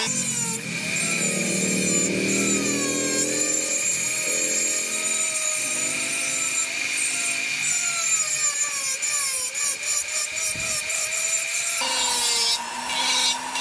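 Foredom flexible-shaft rotary tool grinding wood with a carving burr, shaping a wooden fish carving. Its steady high whine dips and wavers as the cutter bites. Near the end the sound changes as a sanding drum on the same tool works the wood.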